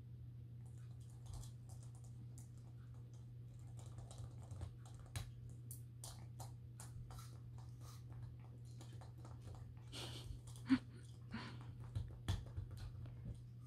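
A Morkie puppy gnawing on a plastic McDonald's Happy Meal toy: faint, irregular clicks and scrapes of teeth on hard plastic, with a few sharper clicks in the last few seconds, over a steady low hum.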